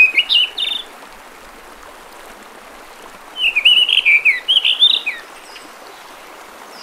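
A songbird singing phrases of quick, varied chirping notes: one phrase ends just under a second in, and a second phrase starts about three and a half seconds in and lasts nearly two seconds.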